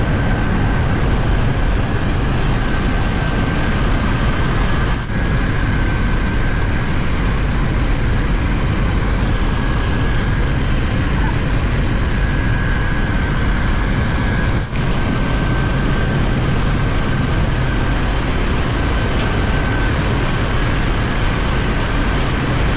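Ship's engine-room machinery running: a loud, steady low drone with a high whine held over it, dropping out for an instant twice.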